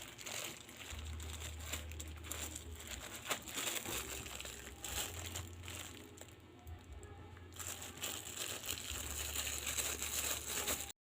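Packaging crinkling and rustling in irregular bursts as a boxed keyboard is unwrapped, cutting off suddenly near the end.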